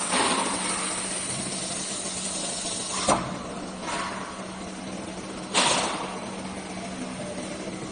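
CNC router with automatic tool changer, running with a steady hum, broken by a sharp click about three seconds in and short bursts of hiss, the loudest about five and a half seconds in.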